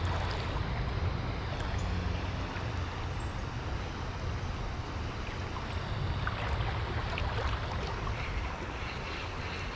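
Steady rushing of a swollen creek running high after heavy rain, with a low rumble underneath.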